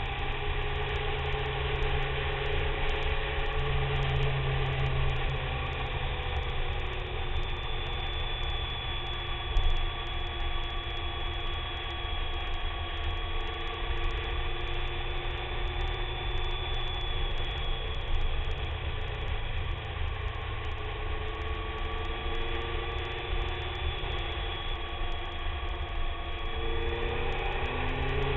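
BMW K1300S inline-four engine running at steady road speed, with wind and road noise. Its pitch starts to rise near the end as the bike accelerates.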